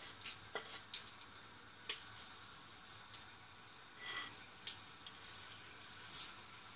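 Whole spices (cloves, cardamom, peppercorns and the like) sizzling faintly in hot oil in a pressure cooker, with scattered small crackles and pops.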